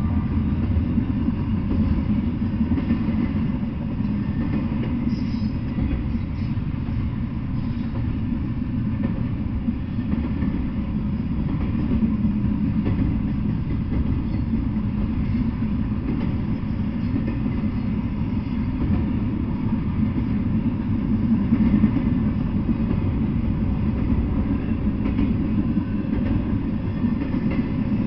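Double-stack intermodal freight train rolling past: the wheels of its container-laden well cars on the rails make a steady, unbroken low rumble.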